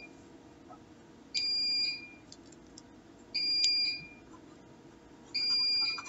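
Electronic beeper sounding three times, each high-pitched beep about half a second long and two seconds apart, in a steady repeating warning pattern.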